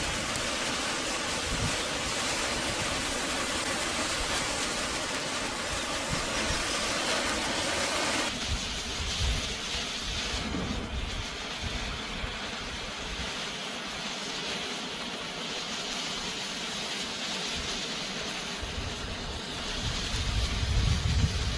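Matchsticks of a model airplane burning, giving a steady rushing, hissing flame noise. The sound changes abruptly about eight seconds in, and a deeper rumble swells near the end as the flames grow larger.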